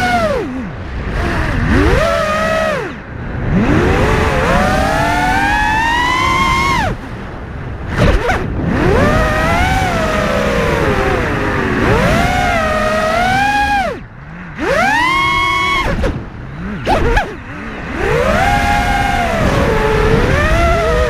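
FPV freestyle quadcopter's brushless motors whining, the pitch sweeping up and down with the throttle. The whine drops away briefly several times as the throttle is chopped for flips and dives, then comes back.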